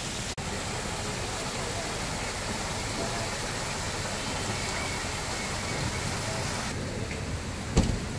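Steady splashing hiss of a fountain's falling water. It turns duller shortly before the end, and there is one low thump near the end.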